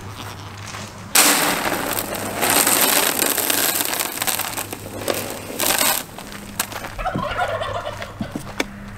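Dry feed poured from a plastic bucket into a plastic trough made from a cut-down 55-gallon drum. The rush of feed grains starts about a second in and stops abruptly at about six seconds. Fainter warbling calls and a few knocks follow.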